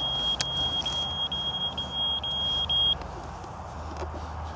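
RC transmitter's low-voltage alarm: a high, steady beep broken by short gaps about twice a second, the sign that the radio's battery is running low. It stops about three seconds in.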